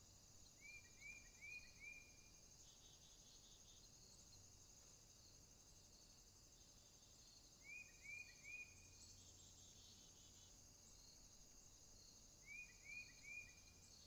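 Quiet forest ambience: a steady high insect trilling, like crickets, runs throughout, while a small bird sings a short phrase of about four quick rising notes three times, near the start, about eight seconds in and near the end.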